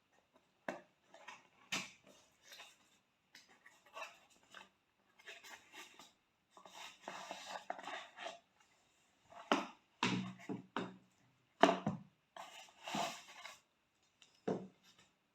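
A product package being opened and handled by hand: irregular clicks, knocks and scratchy rustling of the packaging, with longer rustling stretches about halfway through and again near the end.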